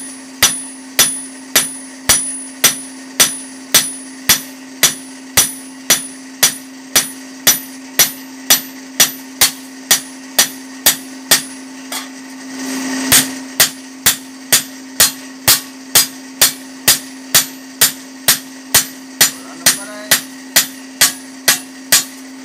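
Blacksmith's hammer beating the edge of a red-hot fodder-chopper blade thin, about two ringing blows a second, with a short break about halfway before the blows resume. Under them runs the steady hum of the electric blower set into the side of the forge furnace.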